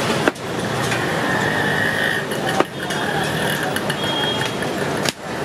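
Steady street traffic noise with a few faint high horn-like tones, broken by two sharp clicks.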